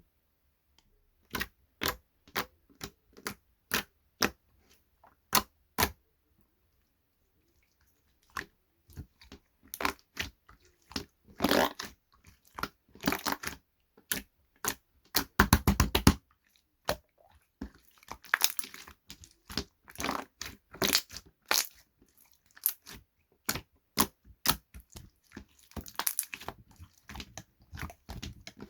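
A series of sharp, irregular crunches and cracks, with a short pause a few seconds in and a dense run of crunching a little past the middle.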